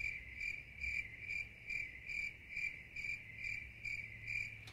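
A cricket chirping steadily, about two short chirps a second.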